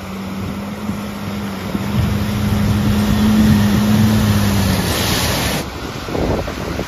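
Four-wheel-drive expedition truck driving through floodwater toward the microphone: its engine hums steadily and grows louder, under the hiss and splash of muddy water thrown up by the wheels. The engine fades about five seconds in, as a brief louder rush of spray passes.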